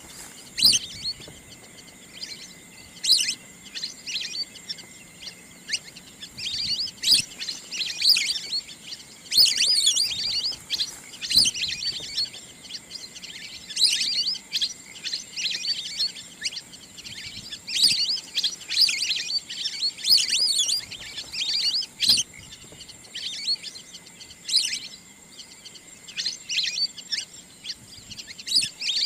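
High-pitched chirping and twittering bird calls in quick, irregular bursts, over a faint steady high tone. It is a recording played as a wild duck call for hunting.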